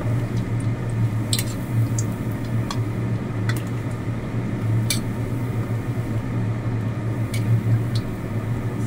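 Prawn cracker deep-frying in hot oil in a steel wok: continuous sizzling, with a handful of sharp clicks scattered through it, over a steady low hum.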